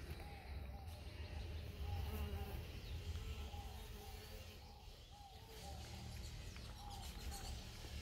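Outdoor garden ambience: a bird calling in a quick series of short repeated notes, about three a second, over a steady low rumble.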